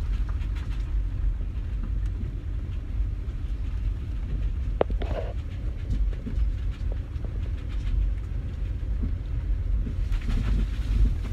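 A Range Rover on the move, heard from inside the cabin: a steady low rumble of road and engine noise, with one sharp click just under five seconds in.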